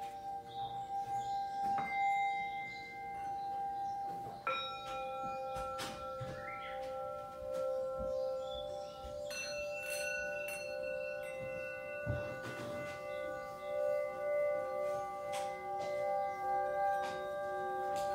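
Background music of long-ringing bell-like tones, with a new note struck about four and a half seconds in and another about nine seconds in, each ringing on over the others.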